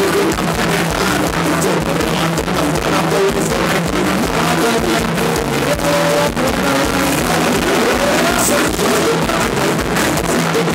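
Live band playing Thai ramwong dance music, with a drum kit keeping a steady beat and loud throughout.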